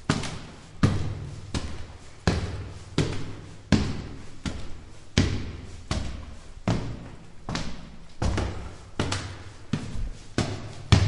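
Footsteps climbing stone stairs: hard shoe soles striking the steps at a steady walking pace, about three steps every two seconds, each with a short echo.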